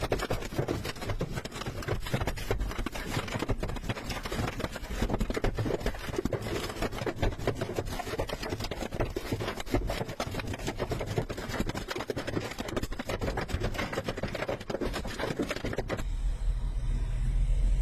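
Dense, rapid drumming of hailstones striking a car, a continuous hail of sharp impacts. About sixteen seconds in it cuts off abruptly, leaving a low steady rumble.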